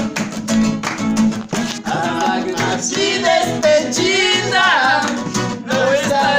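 Acoustic guitar strummed as accompaniment to a man singing a slow romantic ballad. His voice holds wavering, vibrato notes about two to five seconds in.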